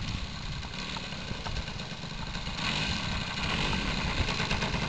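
Radio-controlled model airplane's engine running as the plane comes in low toward the listener, getting louder from about halfway through.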